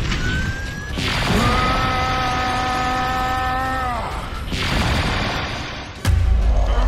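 Cartoon action sound effects. A whooshing hiss with a steady humming tone runs for about three seconds, a second whoosh swells and fades, and a heavy low boom hits about six seconds in.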